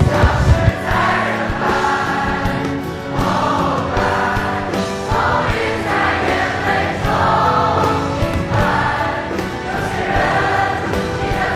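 Choral music: a choir singing held phrases that swell and fade about every second or two. There is a low rumble in the first second.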